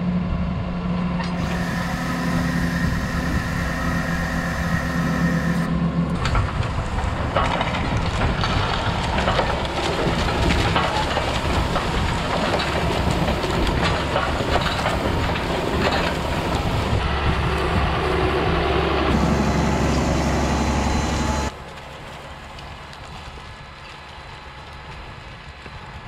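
A tractor pulling a John Deere corn planter through the field, heard close to the planter's row units: a steady engine hum under continuous rattling and clicking from the openers and gauge wheels working the ground. The sound changes suddenly about six seconds in, and at about 21 seconds it drops to a quieter, more distant running noise of the tractor and planter.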